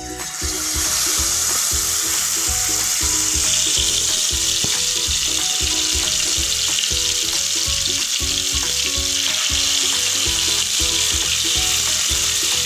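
Marinated chicken pieces sizzling in hot oil as they shallow-fry. The sizzle starts abruptly just after the start, as the pieces go into the oil, then holds steady.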